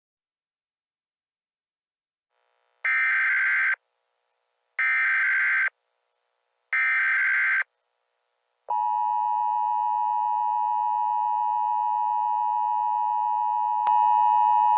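Emergency Alert System alert sequence: after a few seconds of silence, three identical one-second bursts of SAME header data about a second apart, then the steady two-tone EAS attention signal, which steps up in loudness about five seconds after it begins.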